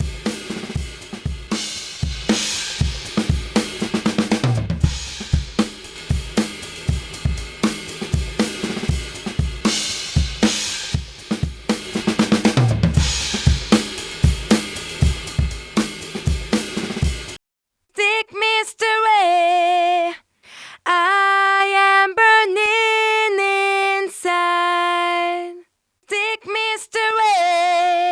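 A drum kit (kick, snare, hi-hat and cymbals) playing a steady beat as demo material for a 1176-style FET compressor plugin. At about two-thirds of the way through it cuts off, and a solo voice takes over, singing held notes with vibrato.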